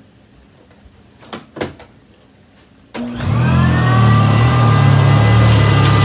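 A few short clicks, then a Eureka commercial upright vacuum cleaner switches on about three seconds in, its motor whine rising quickly in pitch and settling into a steady run.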